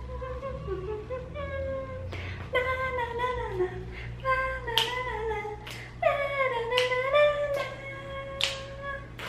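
A voice humming a wandering tune without words, with held and sliding notes, and a few sharp clicks scattered through it.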